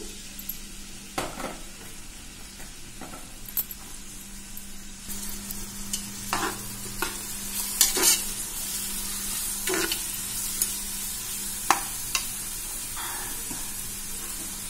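Chopped onions and green chillies sizzling in hot oil in a pressure cooker, stirred now and then, with a few sharp knocks of the utensil against the pot. The sizzle grows louder about halfway through.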